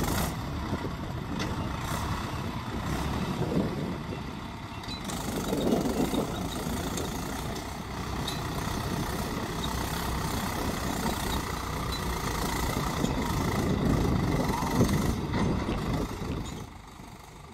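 Mahindra 575 DI tractor's four-cylinder diesel engine running under load as it pulls a reversible mould-board plough through the soil. The level drops near the end.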